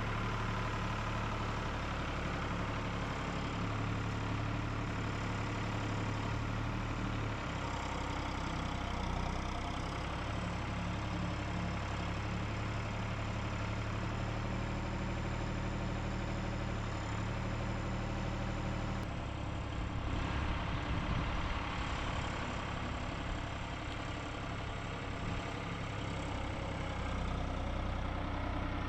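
An engine idling steadily, its sound shifting briefly about two-thirds of the way through.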